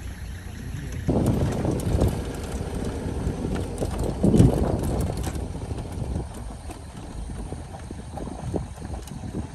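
Safari vehicle driving over a rough dirt track: a low engine rumble with uneven knocks and rattles from the bumps, and wind buffeting the microphone. About a second in, a steady low hum gives way abruptly to louder jolting.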